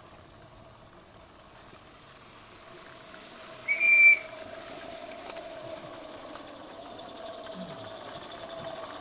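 A 16mm-scale live-steam garden railway locomotive's whistle giving one short, high-pitched toot about half a second long, a little under halfway through. Beneath it runs a steady background sound that grows gradually louder.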